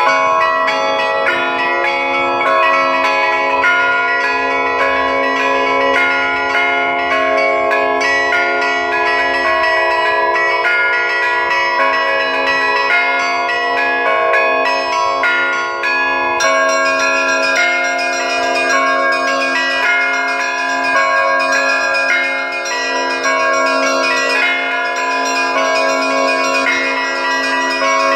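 A set of Russian Orthodox church bells cast by the LITEKS foundry, rung by hand in a continuous peal. Quick strikes of the small high bells ring over many overlapping bell tones, with a steady low tone sustained underneath.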